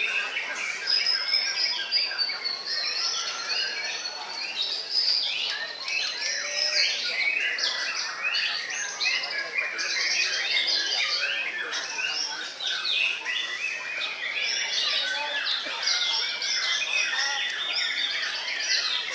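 White-rumped shamas (murai batu) singing in competition cages: a dense, unbroken stream of overlapping whistles, chirps and trills.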